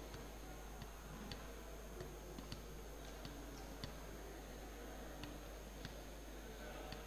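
Faint sports-hall ambience: a steady low hum and hiss, with a few faint sharp ticks at uneven intervals.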